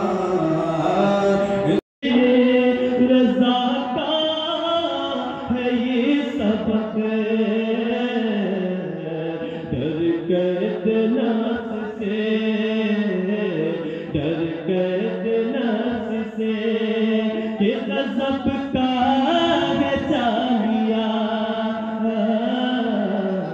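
A man's voice chanting Islamic devotional verse in a long, gliding melody, breaking off for a moment about two seconds in.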